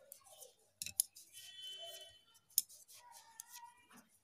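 Knitting needles clicking and scraping against each other as stitches are worked in wool, with a few sharp clicks between softer rustling.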